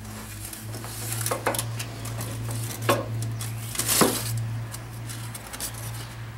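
Sharp clinks and knocks with a short ring, three louder than the rest and the loudest about four seconds in, mixed with crinkling aluminium foil, as a hydraulic oil filter is worked loose by hand under a Scag zero-turn mower; a steady low hum sits underneath.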